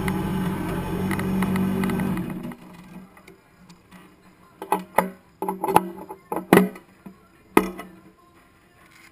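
Kawasaki ZX-10R inline-four engine idling steadily, then switched off and cutting out abruptly about two and a half seconds in. A few seconds later comes a run of sharp clicks and knocks, some with a short ring.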